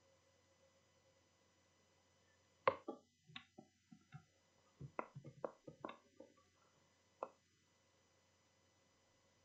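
A quick, irregular series of about a dozen short clicks and knocks, the first the loudest, over a faint steady hum.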